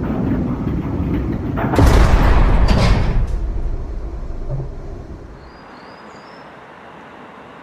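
A heavy metal cell door slamming shut as a sound effect: two loud clangs about a second apart that ring on and die away, over the low rumble of a moving train carriage. After the slam it fades to a quiet steady hum.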